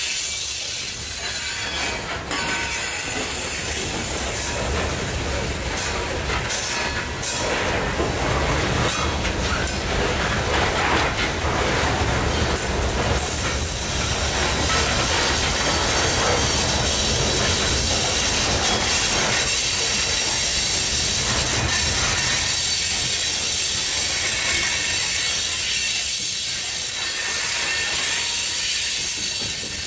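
Loaded coal hopper cars of a freight train rolling past: a steady rumble of steel wheels on rail, with a few clacks and a high-pitched wheel hiss and squeal over the top.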